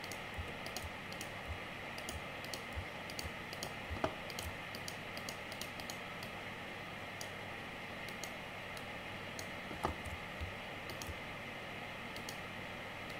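Light, irregular clicks of computer keys over a steady background hiss, with two sharper clicks about four and ten seconds in.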